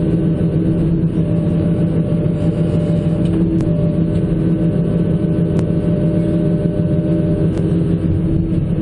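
John Deere 160C LC excavator's diesel engine running at a steady speed, with a few faint clicks.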